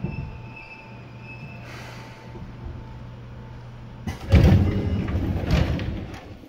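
Seibu 2000 series electric train standing still: a steady under-floor electrical hum and a brief hiss of air about two seconds in. About four seconds in, the sliding passenger doors open with a loud rush and rumble lasting about two seconds.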